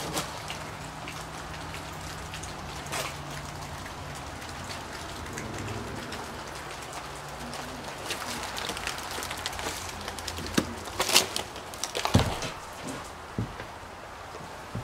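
Rain pattering steadily. Near the end come a few loud crunches and knocks of footsteps on debris.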